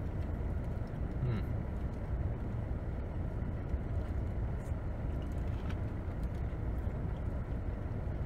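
Steady low rumble of a car idling, heard from inside its cabin, with a faint click about a second in.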